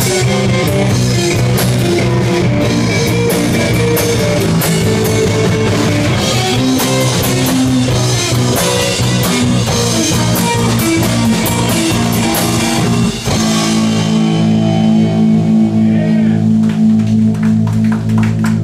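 Live rock band of distorted electric guitar, electric bass and drum kit playing an instrumental passage with busy drumming. About 13 seconds in, the band cuts to a long held chord that rings on with scattered drum hits: the final chord of the song.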